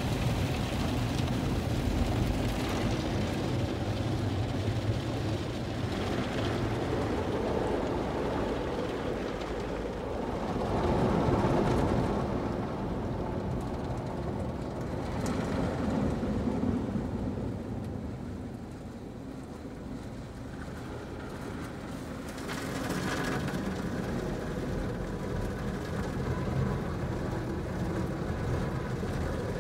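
Automatic car wash heard from inside the car's cabin: spinning cloth brushes sweeping over the windows and body with water spraying, a steady muffled rumble. It swells about eleven seconds in, eases off a little before twenty seconds, then picks up again a couple of seconds later.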